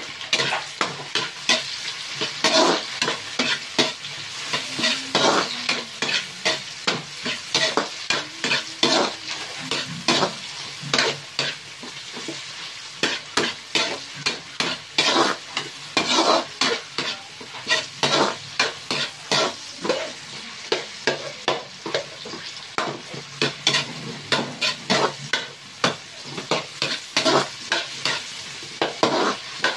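Metal spatula scraping and clinking against a wok in quick, irregular strokes as sliced onion, tomato and red bell pepper are stir-fried, over a light sizzle.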